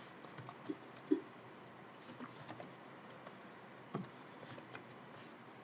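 Faint computer keyboard keystrokes, irregular clicks at a slow, uneven pace.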